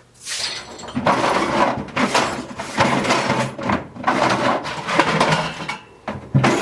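Hands rummaging through tools, with metal and hard objects clattering, scraping and knocking together, while searching for a missing tape measure. The clatter is dense and busy, with many sharp knocks, starting about a second in.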